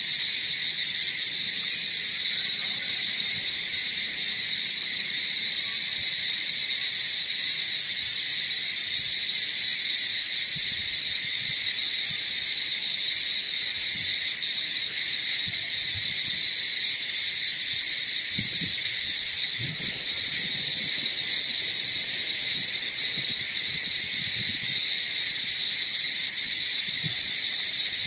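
Steady, high-pitched drone of a daytime insect chorus, unbroken throughout, with faint soft low rustles now and then in the second half.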